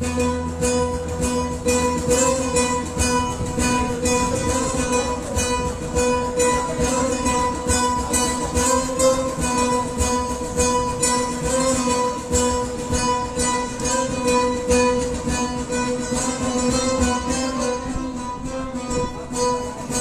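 Acoustic guitar strummed fast and continuously, amplified through a stage PA, over a steady held drone note.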